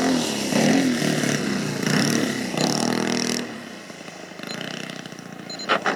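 Radio-controlled model plane's motor and propeller, its pitch rising and falling as the throttle is worked on the landing approach. It drops quieter after about three and a half seconds, and there is a short sharp sound near the end.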